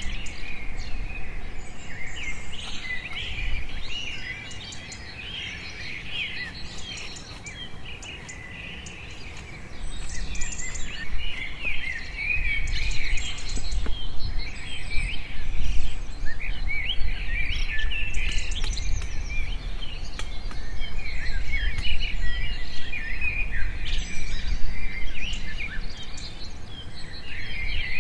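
Many birds chirping and calling together in forest undergrowth. A low rumble comes in about ten seconds in and stays to the end.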